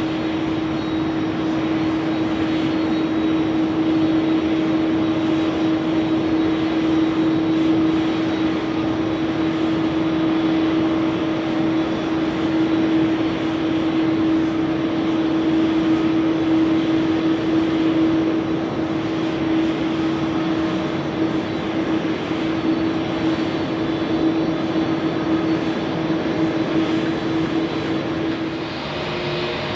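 Airbus A350-941's Rolls-Royce Trent XWB jet engines running as the airliner rolls along the runway after landing. A steady jet rumble and rush with a constant low hum.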